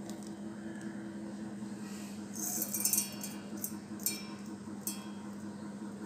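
Dry split mung dal poured into a small steel bowl and stirred by hand, the grains rattling and clinking against the metal: a longer rattle a couple of seconds in, then three or four shorter ones, over a steady low hum.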